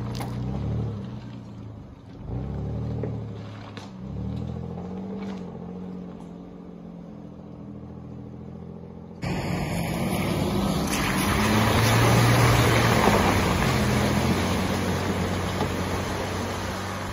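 Four-wheel-drive vehicle's engine revving up and down as it climbs a rutted sandy track. About nine seconds in, a cut brings a louder, steady rush of noise over the engine as it drives along a muddy track.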